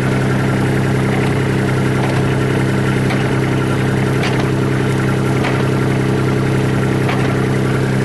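Hitachi EX15 mini excavator's diesel engine idling steadily, with a few faint clicks in the middle.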